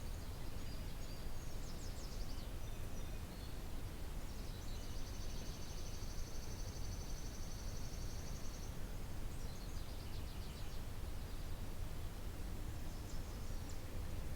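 Songbirds singing outdoors: short high phrases near the start and again in the second half, and in the middle one long, fast, even high trill lasting about four seconds. Under them runs a steady low rumble.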